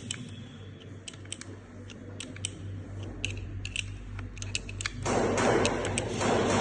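Scattered light clicks and taps of rifle parts being handled during disassembly. About five seconds in, a louder, steady rough noise starts.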